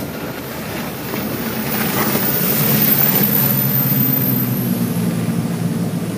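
Sportfishing boat running at speed on open water: a steady engine drone under the rush of water and spray, growing louder over the first three seconds and then holding.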